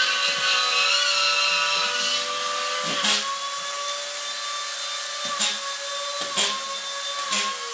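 A small electric power-tool motor running at steady speed with a constant whine, punctuated by a few sharp clicks or knocks; the whine drops slightly in pitch near the end.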